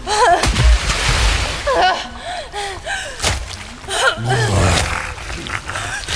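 Short rising-and-falling vocal sounds and gasps from a small animated character, over some splashing in shallow water. Two low thumps land about half a second in and just after four seconds.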